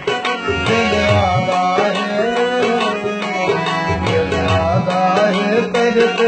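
Harmonium and tabla playing a folk tune together: sustained reedy harmonium melody over tabla strokes, with the bass drum's deep notes bending in pitch.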